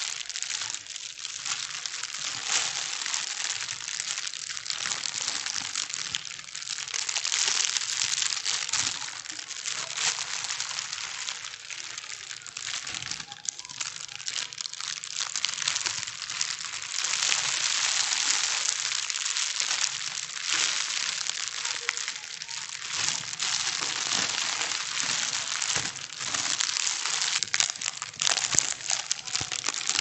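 Thin plastic bags being crumpled and scrunched without a break: a dense crinkling and crackling that swells and eases every few seconds.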